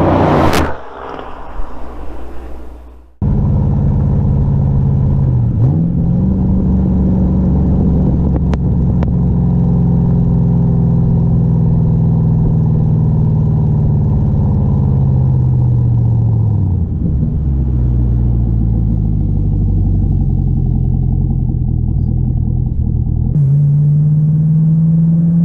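Chevrolet Camaro engine running as the car drives, its pitch climbing a few seconds in, easing slowly down, then dropping about two-thirds through. The sound cuts in abruptly after a short different passage at the start and cuts to another take near the end.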